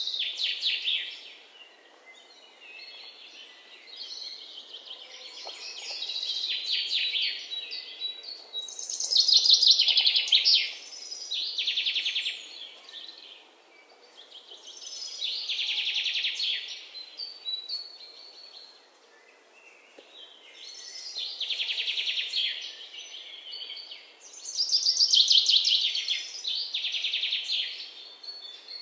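Bird song: repeated high, rapidly trilled phrases, one every few seconds.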